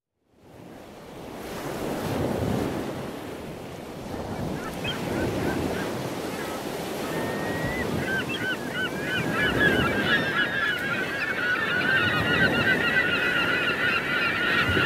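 Ocean surf washing in slow swells, with a flock of birds giving quick, short cries that start sparse and grow thick from about eight seconds in. It begins after a moment of silence.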